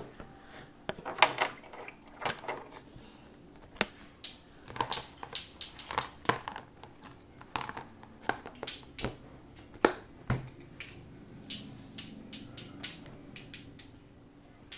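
Irregular sharp clicks, taps and knocks of plastic food containers, their lids and a metal tin being handled on a countertop, fewer after about eleven seconds.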